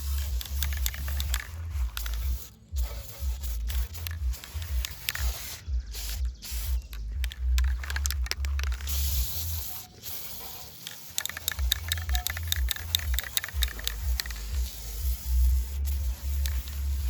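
Background music with a deep, pulsing bass line, with many quick clicks and scrapes over it.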